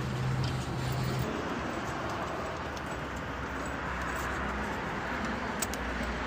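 Steady background rumble and hiss of vehicles running, with a low hum for about the first second and a few faint clicks near the end.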